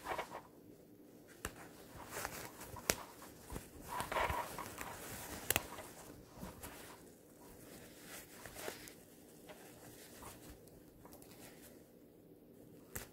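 Quiet rustling and scraping of blazer fabric and lining being handled as a shoulder pad is worked out through a hole in the lining, with a few sharp clicks.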